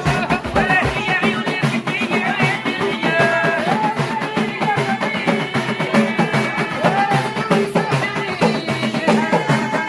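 Moroccan Doukkala folk music ('awniyat'): a gliding melody line over a steady, busy hand-drum rhythm.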